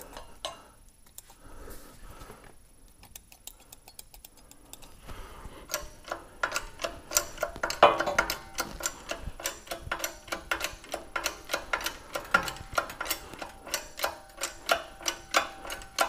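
A square steel broach being pressed through a steel collar on an arbor press, with a run of sharp, regular clicks at about three a second as its teeth cut. The clicking starts about five seconds in, after a quieter stretch while cutting oil is put on the broach.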